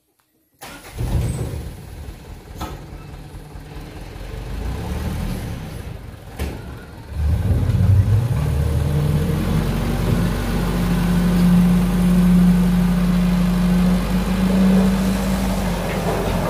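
Dump truck's engine running, then revved up about seven seconds in and held at a higher, steady speed. A couple of light knocks sound before the rev.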